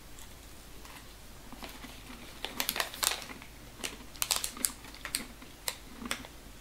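Eating sugar-coated cinnamon pecans from a snack pouch: crisp crunching and crinkling clicks in irregular clusters, starting about a second and a half in.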